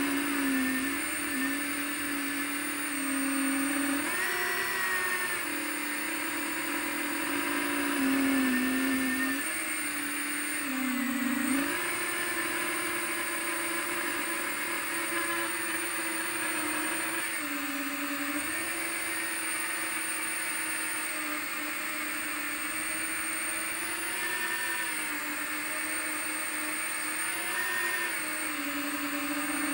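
FPV quadcopter's electric motors and propellers whining steadily, the pitch stepping up and down several times as the throttle changes.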